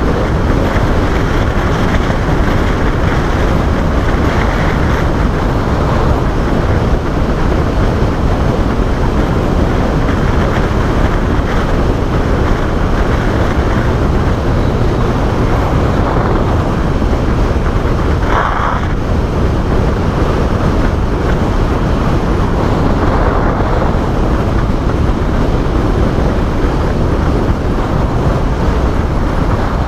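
Motorcycles at expressway speed: a steady engine drone and wind rush, with a brief louder note about two-thirds of the way in.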